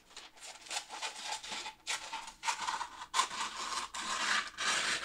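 Parchment paper crinkling and scraping in irregular rustles as it is creased and folded to line a loaf pan.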